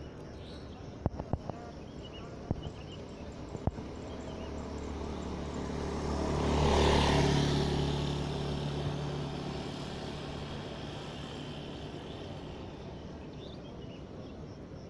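A motor vehicle passing by, its engine hum and noise growing louder for a few seconds, peaking, then slowly fading away. A few faint clicks come before it.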